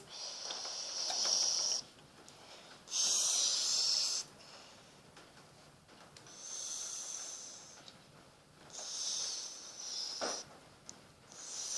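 A child making pretend tea-sipping sounds with the mouth: about five hissing, slurping breaths, each a second or two long, with short pauses between them.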